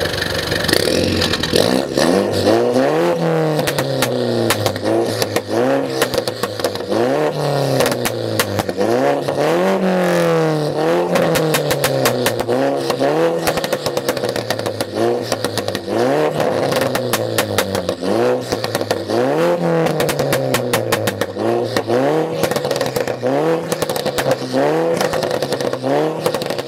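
MINI Cooper S 5-door's turbocharged 2.0-litre four-cylinder, free-revved again and again through a custom exhaust. The engine note rises and falls every second or two, with a constant rattle of pops and crackles from the tailpipes on the overrun.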